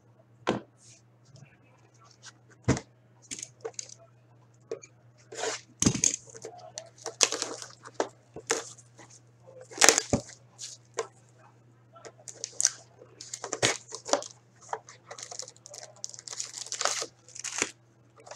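A sealed box of hockey trading cards being unwrapped and opened by hand: plastic shrink-wrap tearing and crinkling, with a run of sharp cracks and taps from the cardboard box.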